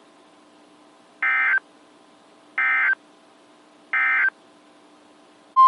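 Three short buzzy bursts of NOAA Weather Radio EAS/SAME digital data, evenly spaced about 1.4 seconds apart: the end-of-message code that closes a warning broadcast. Just before the end, the loud steady weather-radio alert tone starts.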